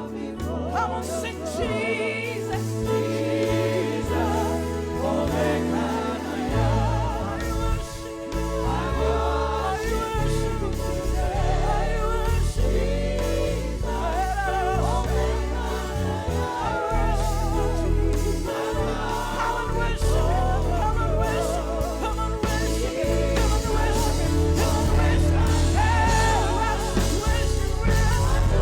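Live gospel praise-and-worship music: several voices singing over a band, with the bass filling out about six seconds in.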